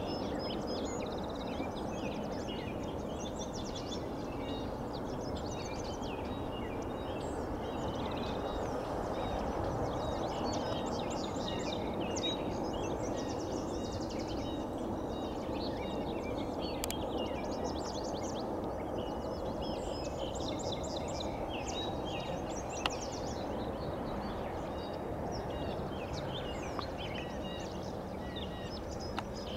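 Songbirds chirping and singing over a steady low rumble from a distant freight train rolling away.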